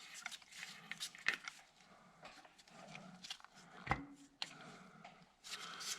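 Faint scattered clicks and rubbing from hands handling parts on a tractor engine block around its block heater, with one louder knock about four seconds in.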